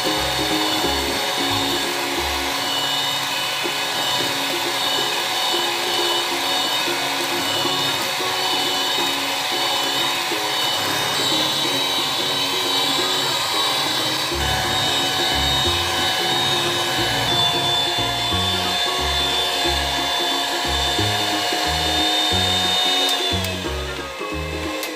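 Electric hand mixer running steadily, whipping eggs and sugar toward a thick, pale ribbon stage. Its motor whine drops in pitch near the end as it slows down. Background music with a rhythmic bass line plays along.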